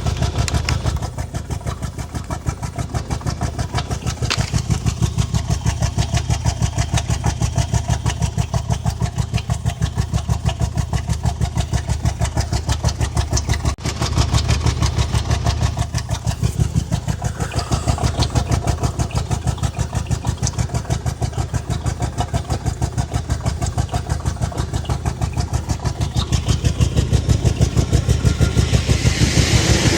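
2003 Honda Accord's 3.0-litre V6 running with a steady pulsing beat, getting louder over the last few seconds. The engine is misfiring, logged as random and cylinders 3 to 6 misfire codes; the cause was one dead-on-arrival new ignition coil.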